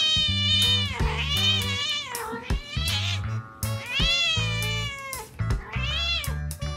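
A cat giving about five long, loud meows in a row, each drawn out and bending in pitch, over background music with a steady bass line.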